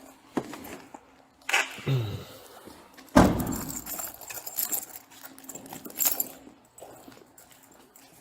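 Handling noises: scattered clicks, rustling and a light metallic jangle, with one heavy thump a little over three seconds in.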